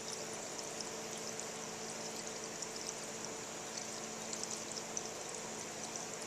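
50/50 coolant pouring steadily through a small funnel into a dirt bike's radiator filler.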